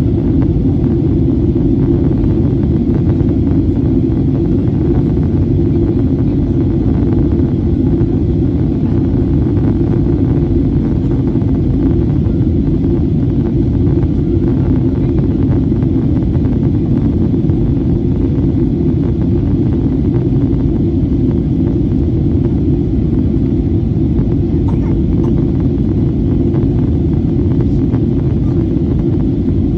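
Steady, deep cabin noise inside a Boeing 737-800 on its descent: its CFM56 turbofan engines and the air rushing past the fuselage, heard from a window seat over the wing.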